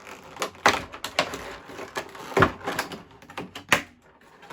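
Cardboard packaging being handled during unboxing: rustling with several sharp knocks and taps as the box and its contents are moved and set down.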